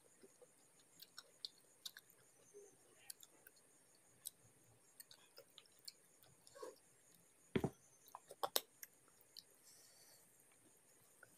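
Quiet, close-miked eating sounds: soft chewing and small wet mouth clicks while rice and chicken curry are eaten by hand. A louder knock comes about two-thirds of the way through.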